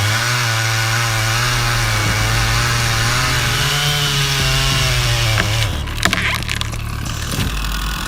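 Chainsaw running under load, its engine pitch wavering as it cuts wood. About five and a half seconds in the steady engine sound breaks off into a stretch of sharp cracks and knocks.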